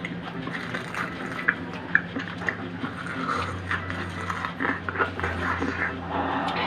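Close-up eating sounds: chewing and mouth noises with scattered small cracks and clicks as a cooked crab's shell is pulled apart by hand, over a low steady hum.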